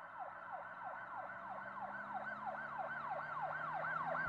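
Siren-like yelp: a pitch that sweeps quickly down over and over, about three or four times a second, with a faint steady low hum beneath, growing louder throughout.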